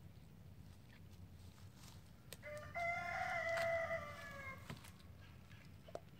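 A rooster crows once, a pitched call about two seconds long starting a little over two seconds in, sagging in pitch at the end. A few sharp clicks come from the Doberman gnawing on a raw deer spine.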